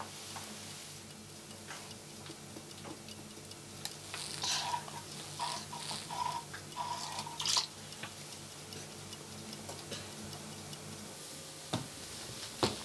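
Low, steady hum of a kitchen appliance, with a short run of soft ticks, about two a second, in the middle. The hum stops shortly before the end.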